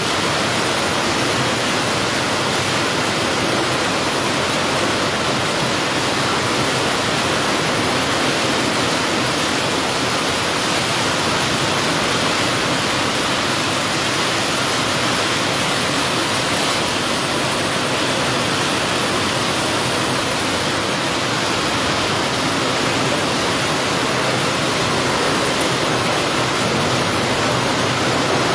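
Heavy rain pouring steadily onto a paved courtyard and potted plants: a dense, even hiss that holds at one level.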